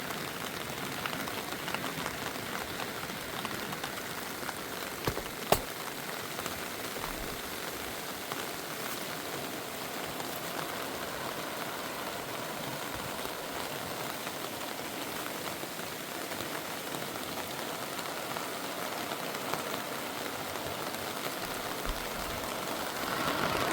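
Steady rushing, hissing water noise, with one sharp click about five and a half seconds in.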